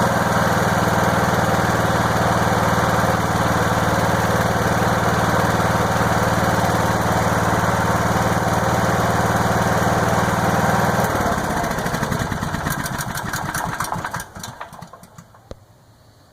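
Honda EM6500SX generator's single-cylinder engine running steadily, then, about two-thirds of the way in, winding down with slowing firing pulses over a few seconds and coming to a stop.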